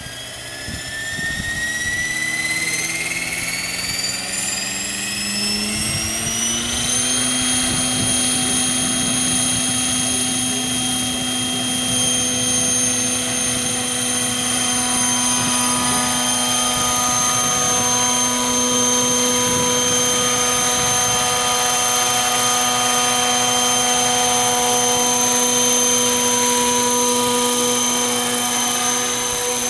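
A 600-size electric RC helicopter's motor and rotors spooling up. The whine rises in pitch for about seven seconds, then holds at a steady high pitch at flight speed as the helicopter lifts off and flies.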